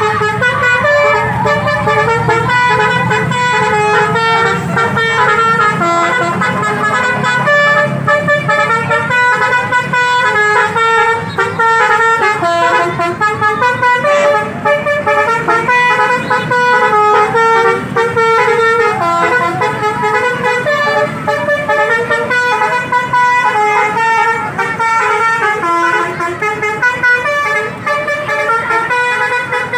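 Basuri 'telolet' musical bus horn playing a continuous tune, loud and unbroken, stepping from note to note several times a second.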